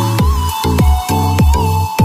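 Electronic dance music with a steady kick-drum beat, a deep sustained bass and a held high synth line.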